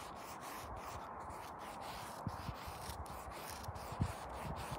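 Small folding knife whittling a wooden stick: steady scraping of the blade as it pares off curled shavings, with a few soft knocks, the loudest about four seconds in.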